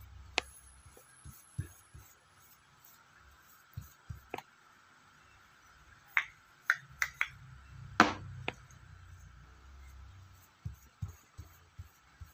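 Paintbrush and painting supplies handled on a tabletop: scattered light clicks and taps, the loudest knock about eight seconds in, over a faint low rumble of handling.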